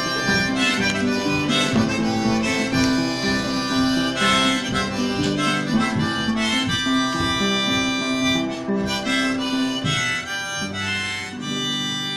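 Harmonica played from a neck rack: a run of held chords and notes that change every second or so.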